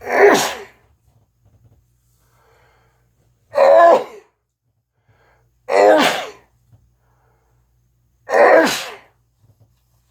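A person sneezing four times in a row, one loud sneeze every two to three seconds, as part of a sneezing fit.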